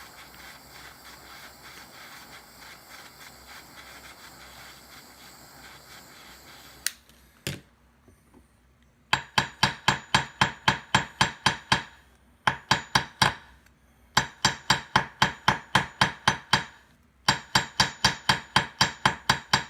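A torch flame hissing steadily for several seconds, then two knocks, then a hammer tapping rapidly metal on metal in runs of about four or five ringing strikes a second with short pauses: the heated end of a coat-hanger wire being flattened on a metal block.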